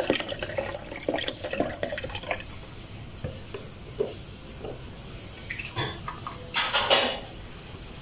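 Milk poured from a measuring jug into a plastic blender jar: a splashing stream for about the first two seconds, then a few light knocks and a louder clatter of kitchen items about six to seven seconds in.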